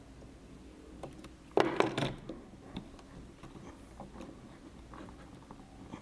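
Small plastic clicks and scrapes of a wire connector being worked loose and pulled off an inverter's circuit board by hand, with a louder cluster of clicks about one and a half seconds in.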